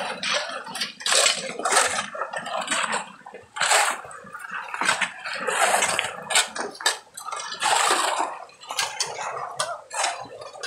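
Metal shovels and hoes scraping and clinking irregularly against gravel and stones in shallow running muddy water, with splashing as the mud is dragged.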